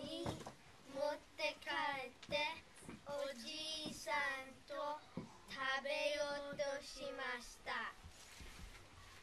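Young children singing a song in Japanese in short phrases, trailing off near the end.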